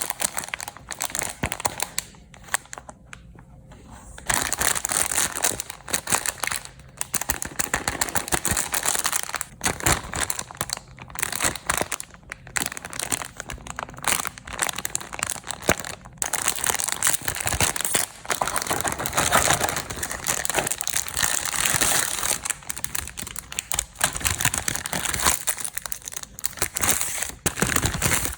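Snack packaging being handled and unwrapped, with dense, irregular crinkling and crackling and sharp little clicks. It goes quieter for a couple of seconds near the start, then resumes.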